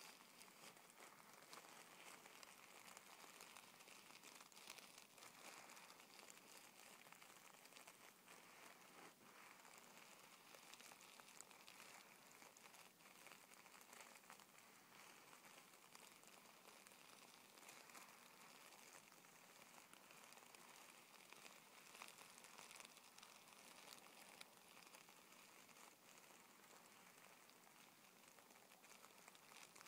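Faint crinkling and rustling of tissue paper rubbed and pressed under fingertips: a steady, fine crackle of many small ticks over a soft high hiss.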